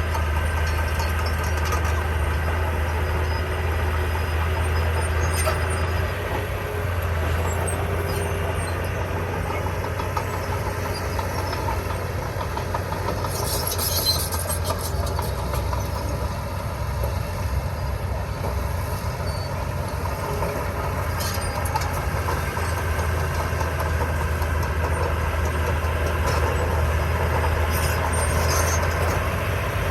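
Heavy diesel construction machinery running steadily with a deep, continuous engine hum, and a short burst of high-pitched metallic clatter about halfway through.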